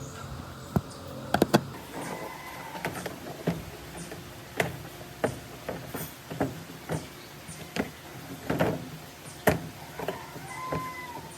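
Irregular sharp clicks and knocks, about a dozen, from hand work on washing-machine parts, with a couple of brief faint squeaks.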